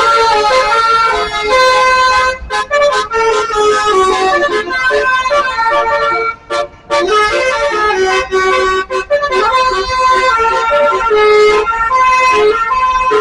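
Basuri telolet horn, an Indonesian multi-tone bus air horn, playing a tune of held notes that step up and down in pitch, with short breaks about two and a half seconds in and again around seven seconds.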